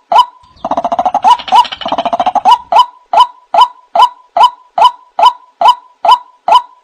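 White-breasted waterhen calls: a loud, monotonous series of pitched notes, about two a second. Half a second in, a rapid chattering run breaks the series for nearly two seconds, then the even series resumes.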